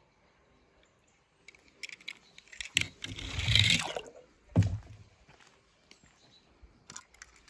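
Water splashing and dripping in a shallow plastic tub as a small die-cast toy car goes into the water, loudest about three seconds in. A dull knock follows just after, with a few light clicks.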